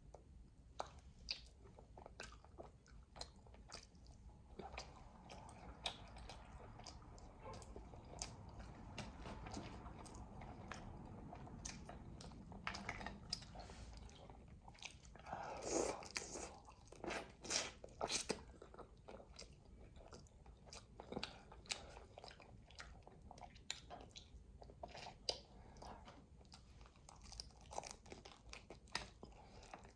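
Close-miked eating of Dungeness crab: chewing and biting, with many short, sharp clicks and cracks from the shell and meat, loudest about 16 to 18 seconds in.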